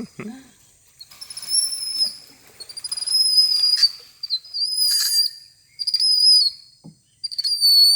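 High-pitched whistled calls, about five in a row, each under a second long with a slight drop in pitch at the end.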